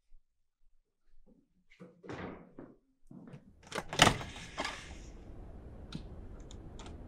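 Bangs on a door: a few thuds about two seconds in, then a louder cluster of sharp bangs around four seconds in, followed by a low steady room hum and a few faint clicks.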